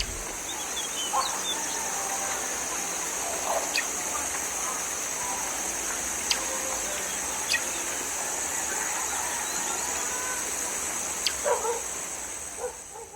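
Bird chirps and short calls scattered over a steady high-pitched hiss, as in an added ambience sound effect.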